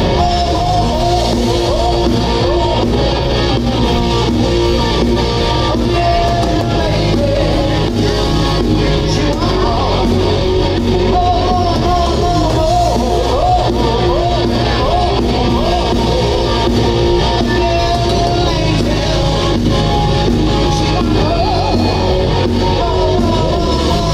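Live rock band playing loudly and steadily: distorted electric guitar, bass guitar and a drum kit, with a lead singer singing into a microphone.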